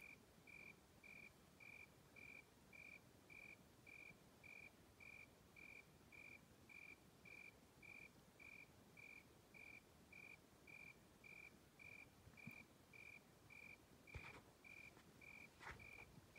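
Faint cricket chirping steadily on one high note, a little under two chirps a second, with a few soft clicks or rustles near the end.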